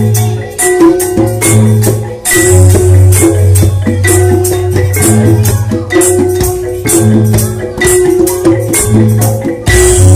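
Javanese gamelan ensemble playing loudly: thick-keyed metallophones and kettle gongs struck hard in a quick, dense rhythm, with kendang drums and deep sustained low tones underneath. Recorded straight through a phone microphone without a mixer.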